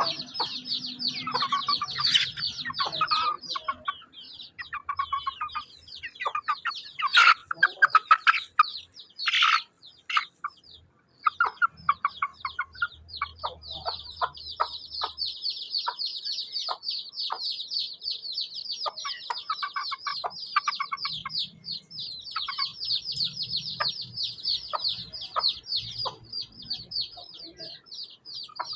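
Baby chicks peeping in a fast, continuous stream, with lower clucking from an adult hen among them. A few loud sharp taps come about seven to ten seconds in.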